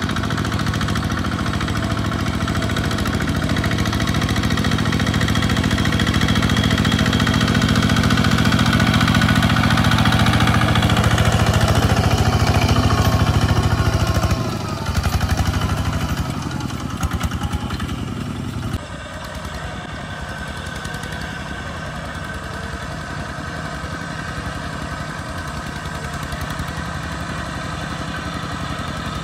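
Kubota two-wheel walking tractor's single-cylinder diesel engine running steadily under load as it drags a loaded trailer through deep mud. The engine sound dips briefly about halfway through, then drops suddenly to a quieter steady run about two-thirds of the way in.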